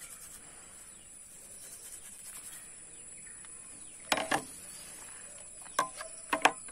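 A brass gas-stove burner being scrubbed by hand in a steel pot of liquid, with a few sharp clinks of metal on metal as it knocks against the pot: a pair about four seconds in and more near the end. Insects chirr steadily and high-pitched in the background.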